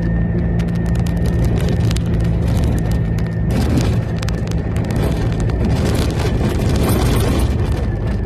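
Jeep Wrangler TJ driving on a rough dirt trail, its engine running at a steady note that changes about three and a half seconds in, with frequent rattles and knocks from the bumpy ride.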